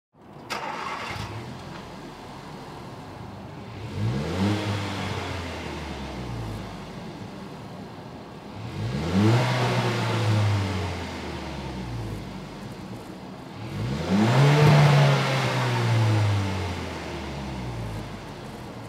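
Hyundai Kona 1.6L turbo four-cylinder idling through an aFe Takeda 304 stainless steel axle-back exhaust with muffler. It is revved three times, about five seconds apart, each rev climbing in pitch and falling back to idle.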